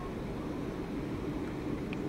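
Steady rushing of steam escaping from Bulleid West Country class steam locomotive 34027 'Taw Valley' as it stands at the platform.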